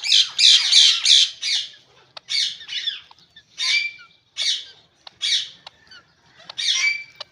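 Indian ringneck parrots squawking: a quick run of harsh screeches in the first two seconds, then single shrill calls about a second apart.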